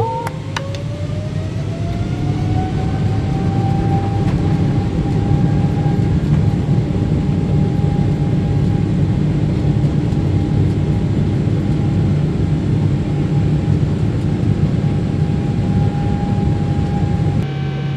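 Jet airliner at takeoff and climb-out, heard from inside the cabin: a deep steady rumble under an engine whine that rises in pitch over the first few seconds and then holds level.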